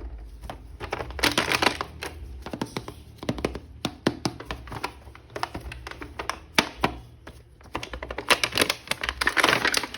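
Hands unpacking a toy action figure: plastic packaging crinkling and rustling, with many sharp clicks and taps of plastic. The crinkling is densest about a second in and again near the end.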